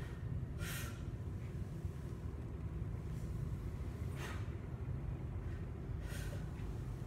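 A weightlifter's sharp breaths, three of them a few seconds apart, during a set of barbell back squats, over a steady low rumble.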